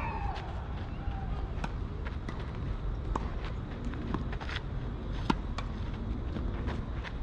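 Tennis rally on a clay court: sharp pops of racket strings hitting the ball and of the ball bouncing, several times, the loudest about five seconds in, with scuffing footsteps on clay over a steady low rumble.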